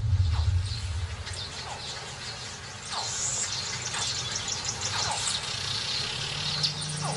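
Crocodile hatchlings calling: short squeaky chirps, each falling in pitch, repeated every second or so, with quicker high chirps above.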